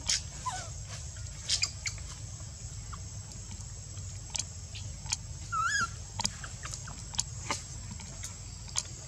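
A baby monkey's short wavering squeak about halfway through, among scattered small clicks and a couple of brief falling squeaks, over a steady thin high whine and a low rumble.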